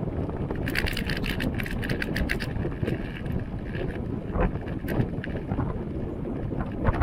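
Wind buffeting an action camera's microphone on a moving road bike, over a steady rumble of tyres on pavement. About a second in, a run of rapid clicks lasts nearly two seconds, and a few single clicks follow later.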